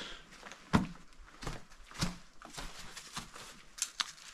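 Scattered knocks and clunks from handling the hatch of a mini excavator's engine compartment while opening it, over faint rustling. The sharpest knock comes about three-quarters of a second in, with smaller ones around two seconds and near the end.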